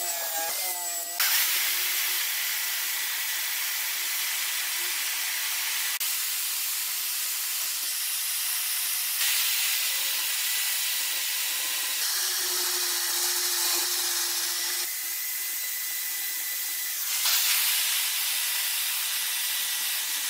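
Corded electric drill spinning an abrasive sanding wheel against the chest's old leather covering, making a steady abrasive hiss over a faint motor whine. The level shifts in steps every few seconds.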